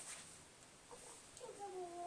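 Cat giving a faint, drawn-out meow that starts a little past halfway and falls slightly in pitch.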